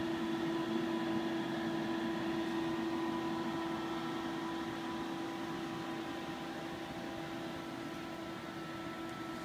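Steady electrical and fan hum of laboratory equipment, with a constant low tone and fainter higher tones over a soft hiss, easing slightly in level toward the end.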